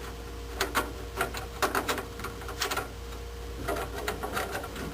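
Screwdriver working a stubborn screw into a furnace's sheet-metal bracket: irregular small clicks and scrapes of metal on metal as the screw refuses to bite.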